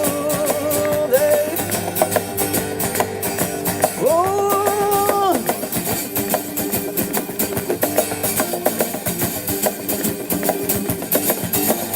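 Rock duo of guitar and drums playing an instrumental passage: a driving guitar part over steady drum and cymbal hits, with a note slid up into and held for about a second, about four seconds in.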